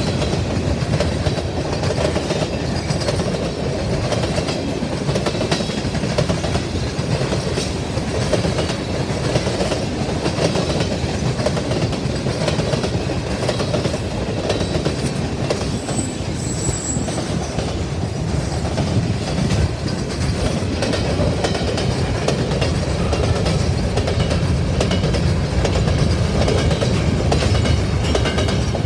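Freight cars of a grain train rolling past with a steady rumble.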